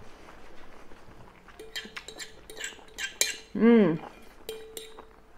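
A metal fork clinking and scraping against a white ceramic bowl of spaghetti: several light clinks, some leaving a short ring. A short wordless vocal sound, rising then falling in pitch, comes about three and a half seconds in and is the loudest sound.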